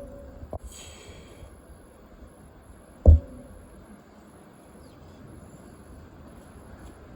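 One short, low thump about three seconds in, over faint steady background noise, with a brief high-pitched sound about a second in.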